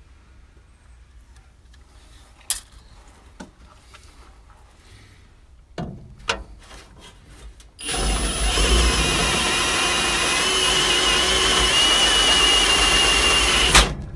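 Milwaukee M18 cordless drill boring into the steel frame rail of a 1953 Chevy truck, enlarging a hole with the next bit size up. About eight seconds in the drill starts and runs steadily for about six seconds with a high, wavering cutting whine, then stops. Before it starts there are only a few faint clicks.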